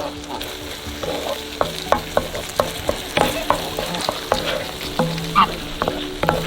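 A utensil stirring food in a pan, with irregular clinks and scrapes against the pan over a frying sizzle.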